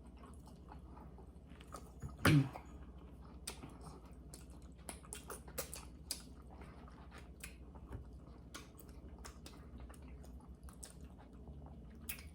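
People chewing and eating barbecued baby back pork ribs, with irregular small mouth smacks and clicks. A brief, louder vocal sound sliding in pitch comes about two seconds in.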